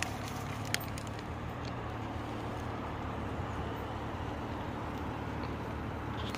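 Steady engine hum and road noise heard inside a car's cabin as it rolls slowly along, with a small click about a second in.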